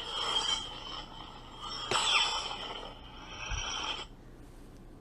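A Neopixel lightsaber with a Proffie sound board plays a sound font through its speaker: a hissing blade hum with a sudden swing surge and a falling tone about two seconds in. The sound cuts off about four seconds in.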